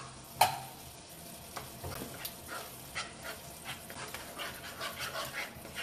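Spatula stirring a thick, bubbling cream sauce in a nonstick frying pan, with a sharp knock about half a second in and then a run of short, irregular scrapes and taps against the pan over a faint sizzle.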